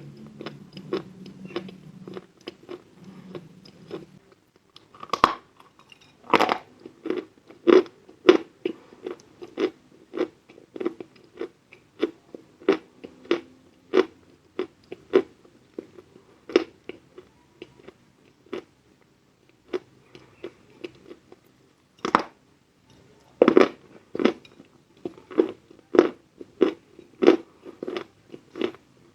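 Chalk being bitten and chewed close to the microphone: a steady run of dry crunches, about one or two a second, with a few louder bites about a fifth of the way in and again about three quarters through.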